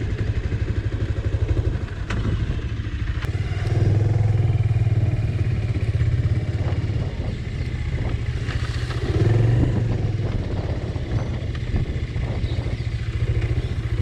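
Motorcycle engine running while the bike is ridden along a rough dirt track. The engine grows louder as the throttle opens about four seconds in and again around nine seconds, with a few short knocks along the way.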